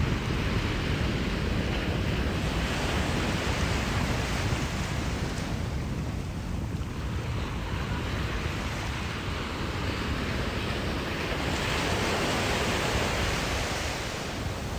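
Ocean surf washing on the shore, swelling a few seconds in and again near the end, with wind rumbling on the microphone.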